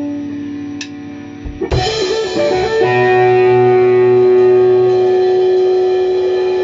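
Guitar music: a held note, then a brief wavering passage about two seconds in that settles into one long sustained note.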